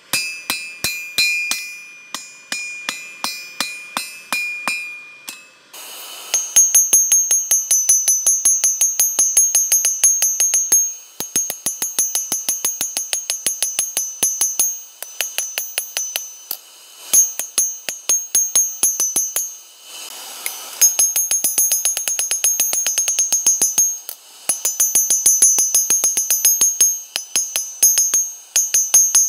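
Hand hammer forging a red-hot leaf-spring steel bar on a 180-pound anvil, each blow ringing the anvil. The blows come at a slower, even pace at first, then quicken to rapid strikes from about six seconds in, broken by a few short pauses.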